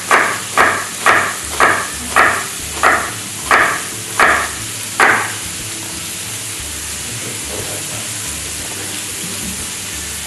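Knife chopping on a wooden cutting board, about nine sharp strokes that slow and stop about five seconds in. Under and after them runs the steady sizzle of minced meat frying in a pan.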